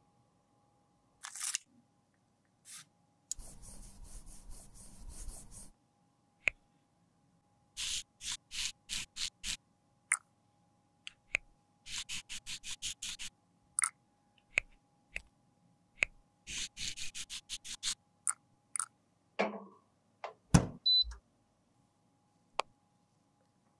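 Handling and working pressed makeup powder in its compact and pan: runs of short scratchy strokes, about four a second, with sharp clicks between them. A steady hiss lasts about two seconds early on, and there are a couple of knocks near the end.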